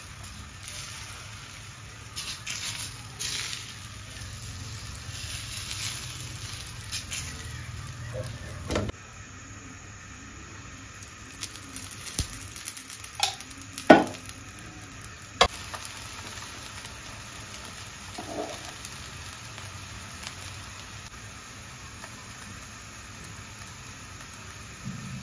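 Rice-flour roti batter sizzling on a hot iron tawa as melted fat is poured over it: a steady frying hiss. A few sharp utensil clinks come near the middle, the loudest a little past halfway.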